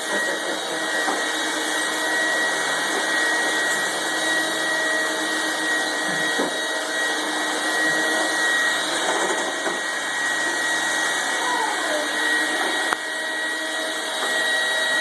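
Vacuum cleaners running steadily, a continuous motor hum with a high, steady whine; the level dips briefly about thirteen seconds in.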